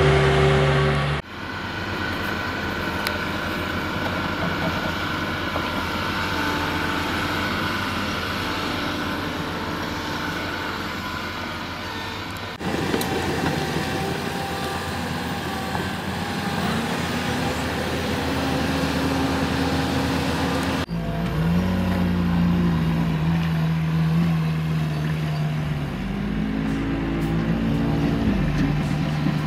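Diesel engines of construction machines, excavators and a wheel loader, running at a roadworks site. The sound changes abruptly twice. In the last part the engine pitch rises and falls repeatedly as the machines rev.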